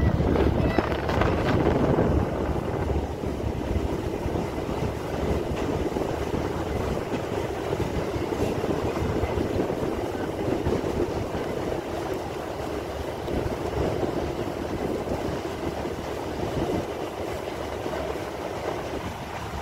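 Passenger ferry under way, heard from inside its cabin: a steady mechanical drone of the engines, a little louder in the first two seconds.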